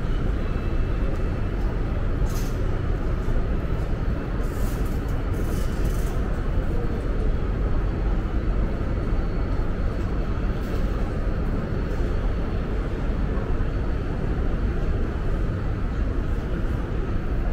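Steady low rumble of a large train-station concourse's ambient noise, with faint distant voices and a few brief clatters.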